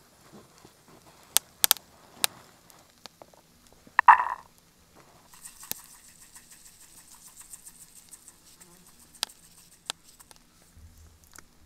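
Granulated sugar poured onto red berries in a small black pan, a steady hiss lasting about five seconds from the middle on. Before it come a few sharp clicks and a short louder burst about four seconds in.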